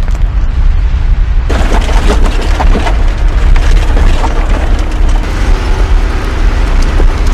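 Volkswagen Vanagon jolting along a rough dirt mountain track: a loud, constant low rumble with irregular knocks and rattles, fuller and brighter from about a second and a half in.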